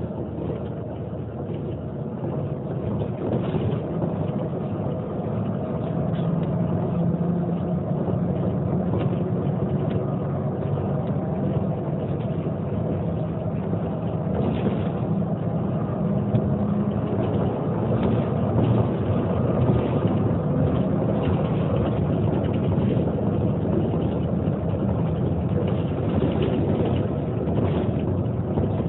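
Neoplan N 4416 city bus running, a steady engine drone that grows louder over the first several seconds and then holds level.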